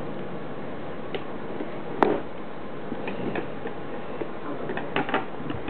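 A cardboard toy box being handled: one sharp knock about two seconds in, then scattered light clicks and taps, over a steady hiss.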